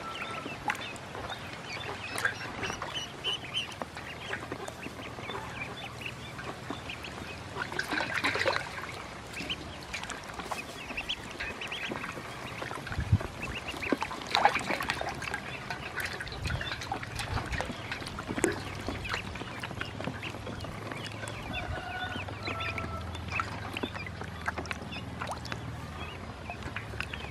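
Ducklings peeping as they swim and dabble in a steel bowl of water, with small splashes and short clicks scattered throughout and a few louder bursts.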